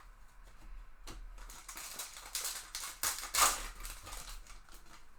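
Trading cards and their foil pack being handled: a run of rustles, slides and small clicks as cards are pulled and flipped through, loudest a little past the middle.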